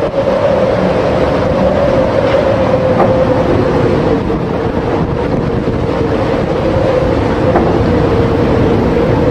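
Storm at sea heard from aboard or beside a ship: a steady loud rush of wind and breaking water with an unbroken drone underneath.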